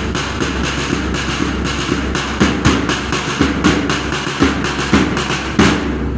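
Drumbeats keeping a steady marching rhythm of about three beats a second, over a loud rumbling noise; the sound fades out at the very end.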